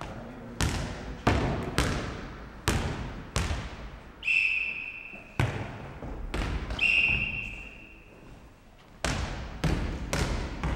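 A futnet ball bouncing on a wooden sports-hall floor and being kicked back and forth: sharp, echoing thuds every half second to a second, with a short lull near the end. Two short high squeaks come in with the impacts near the middle.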